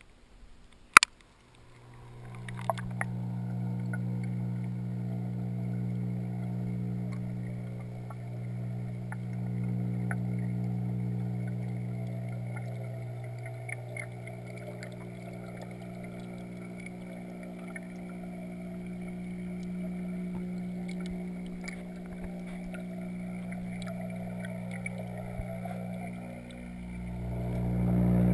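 Aquarium heard from underwater through a GoPro's waterproof housing: a steady low hum from the tank's pump, with the noise of a rising air-bubble stream. A sharp knock about a second in, and the hum grows louder near the end.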